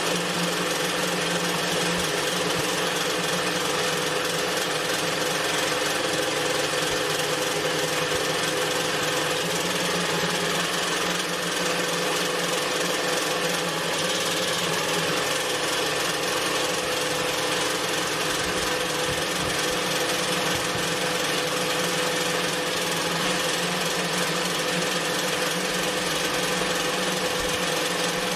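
Melco multi-needle embroidery machine running steadily, stitching without pause.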